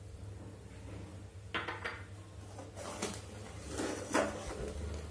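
Steel ladle scraping and knocking against a metal kadhai while stirring thick, reduced milk: several short scrapes starting about a second and a half in.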